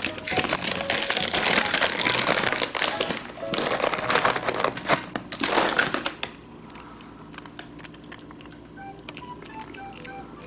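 Plastic cat-treat bag crinkling and rustling as it is handled for more treats, loud for about six seconds, then stopping, leaving soft background music.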